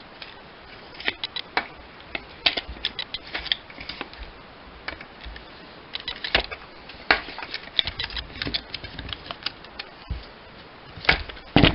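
Irregular light clicks and taps of small objects being handled, over a steady hiss, with a louder cluster of knocks near the end.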